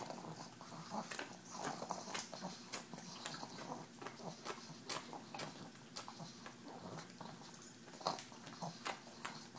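Pug licking and chewing spray cheese out of a KONG toy: fast, irregular wet smacking and clicking of tongue and jaws, mixed with snorting.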